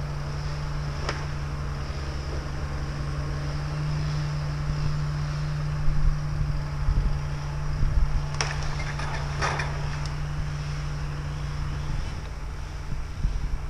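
Forestry harvester's diesel engine running at a distance with a steady low drone. A few heavy thumps and two short cracking sounds come about halfway through.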